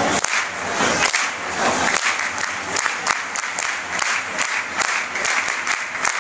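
A crowd of football supporters applauding and shouting, with sharp single claps close by standing out over the din.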